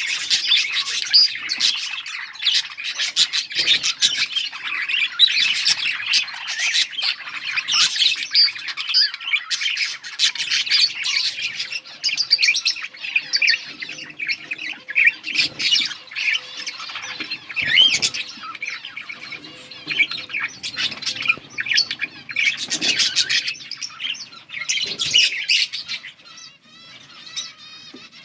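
A group of budgerigars chirping and squawking, many high calls overlapping without pause; the calling thins out and grows quieter about two seconds before the end.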